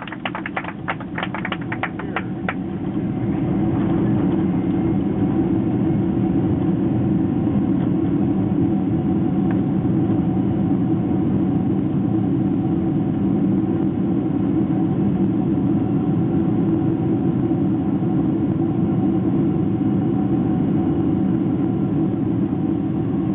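Cabin noise of a Boeing 767-300 landing: a steady rumble of engines and airframe, with a quick run of rattling clicks in the first two seconds and the rumble rising about three seconds in, then holding.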